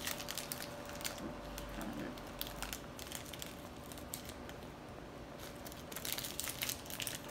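Plastic chocolate-bar wrapper crinkling as it is opened and peeled back by hand, in scattered crackles that come thicker near the end.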